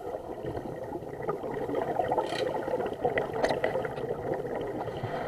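Underwater sound picked up through a camera's waterproof housing: a continuous muffled bubbling and crackling. Brief brighter hisses come about two seconds in and again about three and a half seconds in.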